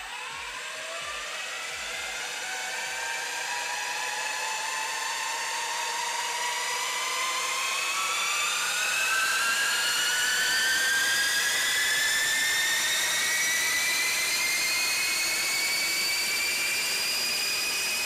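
Combat robot's weapon spinning up: a 5045 brushless outrunner driving the blade through a 3D-printed tool-steel spur gear train, the gearbox scream rising steadily in pitch as the blade gains speed, quickly at first and then more slowly as it nears top speed.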